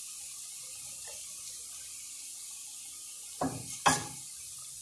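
Corn fries deep-frying in hot oil: a steady sizzle, with a short sharp knock near the end.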